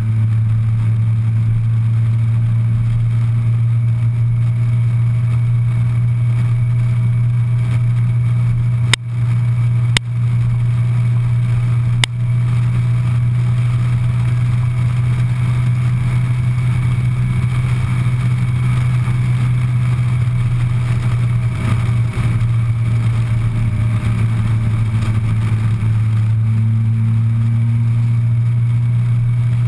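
Suzuki Hayabusa's inline-four engine running steadily at highway cruising speed, mixed with the rush of wind. Three sharp clicks come near the middle.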